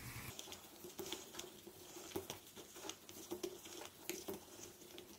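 Faint, irregular light clicks and rustles of a crochet hook pulling cotton cord through the punched holes of a leather bag side panel, a few a second, as single crochet stitches are worked along its edge.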